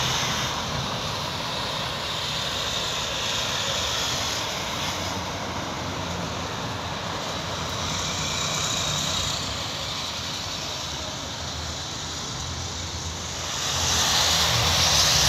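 Steady outdoor rushing noise with a low rumble underneath, swelling louder near the end.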